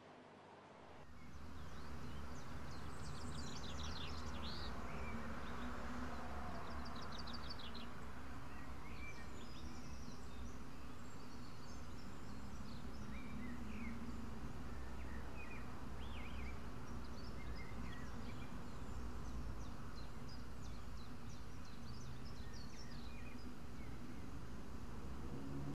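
Outdoor nature ambience: a steady low rumble and hiss with scattered short, high chirps and trills of birds. It fades in over the first couple of seconds.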